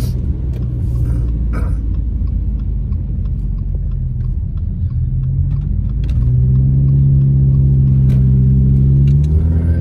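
Car engine and road rumble heard from inside the cabin while driving on wet pavement. About six seconds in, the engine note gets louder and climbs slightly as the car accelerates, then falls back near the end.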